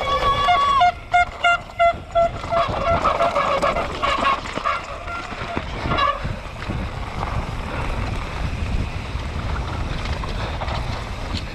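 Mountain bike ridden fast down a rough trail: wind on the helmet-camera microphone and the bike rattling over the ground. Trackside spectators cheer and blow horns in short repeated toots during the first two seconds.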